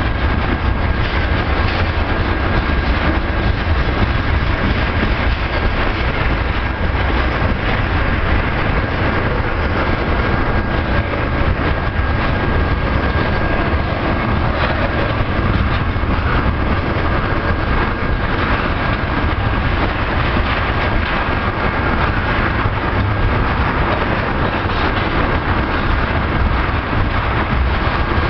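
A long crude oil train of tank cars rolling past: a steady, loud rumble and clatter of steel wheels on rail, with a thin steady high whine over it.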